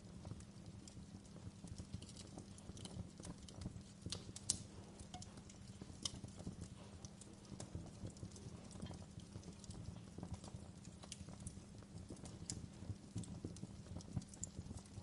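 Campfire burning with a low steady rumble and irregular crackles and pops of burning wood, the loudest pop about four and a half seconds in.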